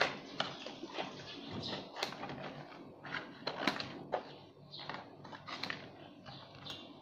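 Scissors snipping through a thin cardboard box, a few irregular sharp snips amid the rustle and crinkle of the cardboard being handled.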